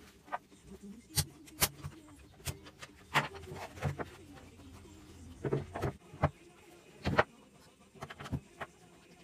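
Irregular clicks and knocks of hard plastic and metal parts of an electric fruit juicer being pried, lifted off and handled during disassembly.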